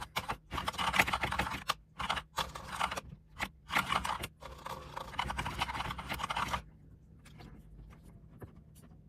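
Mechanical keyboard keys clacking in quick, dense runs broken by short pauses for several seconds, then only a few scattered, fainter clicks near the end.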